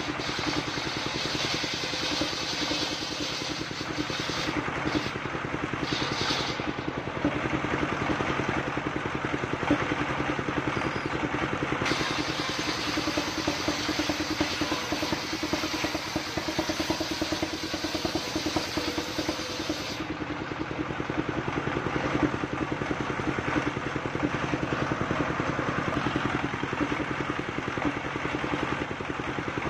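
Single-cylinder diesel engine of a trailer-mounted circular sawmill running steadily at working speed, driving the saw blade as it cuts through coconut trunk.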